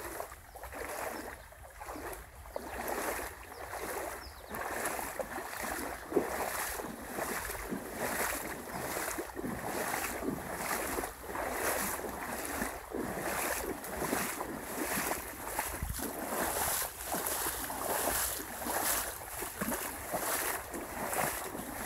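Boots wading through floodwater running down a hiking trail: a regular slosh and splash with each stride, over the wash of the flowing water.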